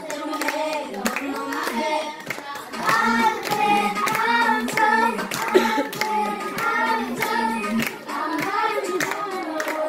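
Children singing a song with clapping in time to the beat, about two claps a second.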